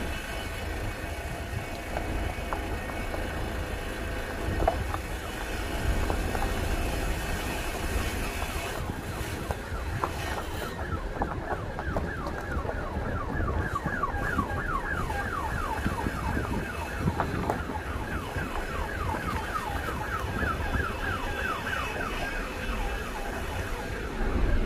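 An electronic siren sounding a fast run of short falling sweeps, about three a second, starting about ten seconds in and stopping shortly before the end, over a steady low rumble.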